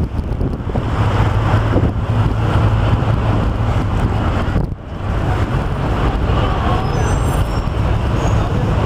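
Steady road traffic: a heavy low rumble of engines that dips briefly about halfway through.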